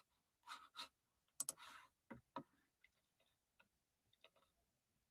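Near silence broken by faint handling noises: a soft rustle about a second and a half in, then scattered light clicks and ticks.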